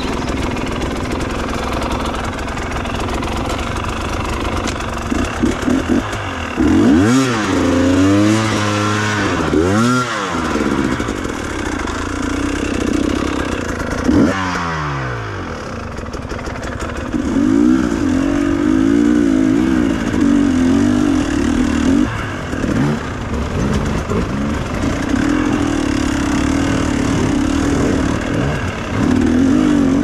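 Dirt bike engine revved hard several times in quick succession in the first third, its pitch sweeping sharply up and down, then revved again once around the middle. After that it runs on at uneven throttle with repeated rises and falls in pitch as the bike is ridden.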